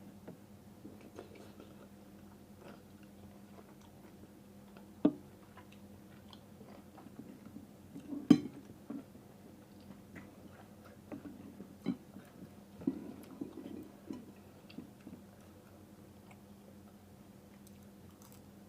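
A person eating boat noodles: chewing with scattered small clicks, and a few sharp knocks, the loudest about eight seconds in.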